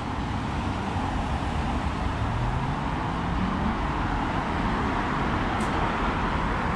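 Road traffic on a city street: a steady wash of tyre and engine noise, with one vehicle's engine rising in pitch as it speeds up around the middle.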